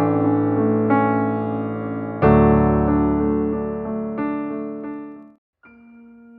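Electric piano music: slow sustained chords, a fuller chord with deep bass struck about two seconds in, then fading out about five seconds in before a softer held chord begins after a short gap.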